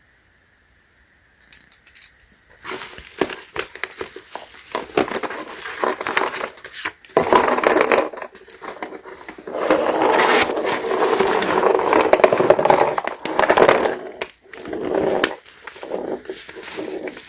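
Plastic packaging crinkling and rustling as a replacement iPad glass digitizer is unwrapped. It starts about a second and a half in and goes on as a dense, crackly handling noise with a couple of short pauses.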